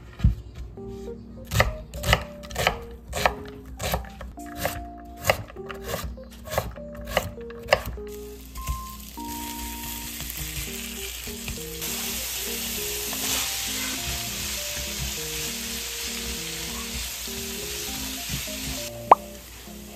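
Knife chopping on a wooden cutting board, about two strokes a second, over light background music. From about eight seconds in, minced beef and garlic sizzle steadily in a frying pan as they are stirred, with one sharp knock near the end.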